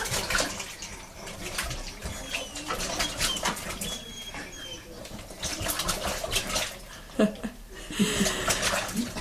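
Bath water splashing and sloshing as a small child plays in the tub, in many short irregular splashes, with a couple of brief pitched squeaks or cries about seven to eight seconds in.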